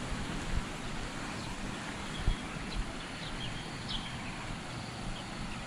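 Footsteps on a concrete path, a few soft low thumps over a steady outdoor hiss, with a few brief bird chirps in the middle.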